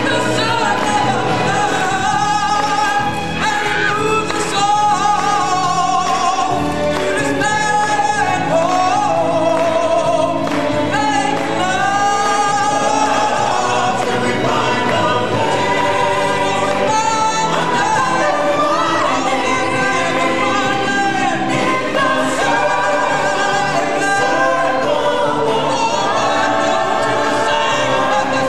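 Stage-show singers performing a song as a chorus over musical accompaniment, amplified through the theater's sound system; the singing runs without a break.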